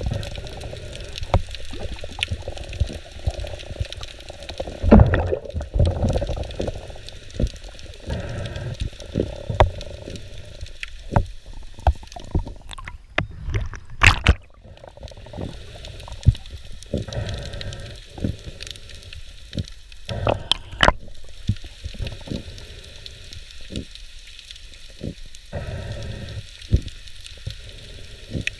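Underwater sound picked up by a camera in the sea: a steady watery rush and gurgling with many scattered clicks and knocks, a few louder thuds among them.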